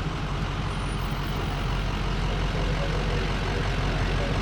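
Steady vehicle noise: a constant low engine rumble with an even hiss over it.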